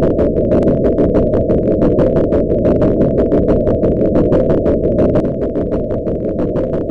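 Large marine diesel main engine running: a loud, dense rumble with an even, rapid ticking about five or six times a second.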